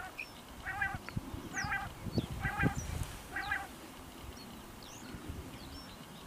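Common quail calling five times in a steady series, about one call a second, then falling silent about three and a half seconds in. Faint high chirps of other birds are heard, with a few low thuds.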